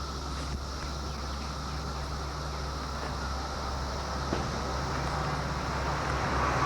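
Steady drone of a periodical (17-year) cicada chorus over a low hum, with a light click about four seconds in and the noise growing louder near the end.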